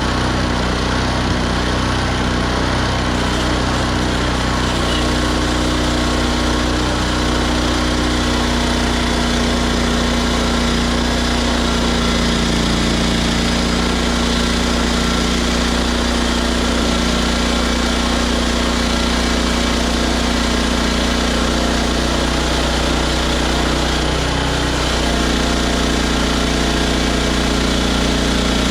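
Engine of a Hudson HFE30 bandsaw sawmill running steadily, with the engine note shifting a little about 25 seconds in.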